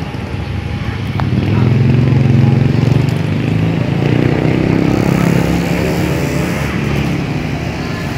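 Small motorcycle engines running as the bikes ride over a railway level crossing, loudest about two seconds in, with people's voices alongside.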